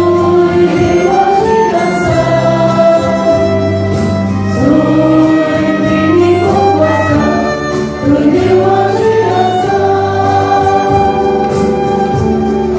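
Mixed church choir singing a hymn, accompanied by a violin and an electronic keyboard that holds sustained low bass notes under the voices.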